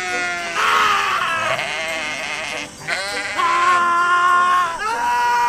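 Sheep bleating: a run of three long, loud, drawn-out bleats with short breaks between, the middle one held at a steady pitch, calls so sustained they sound almost like a person yelling.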